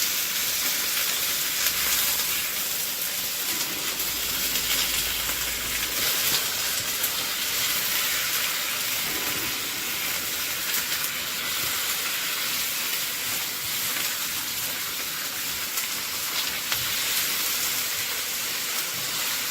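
Chicken pieces frying in hot oil with ginger and garlic: a steady sizzle, with a few faint clicks from stirring.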